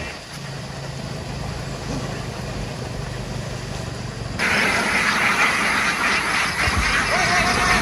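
A steady low motor hum, then, cutting in abruptly a little past halfway, a large flock of ducks quacking all together in a dense, continuous din.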